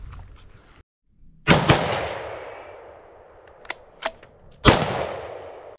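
Three rifle shots from a Stag Arms AR-15 in 6.8 SPC: two in quick succession, then a third about three seconds later, each crack followed by a long rolling echo. A couple of small sharp clicks fall between the second and third shots.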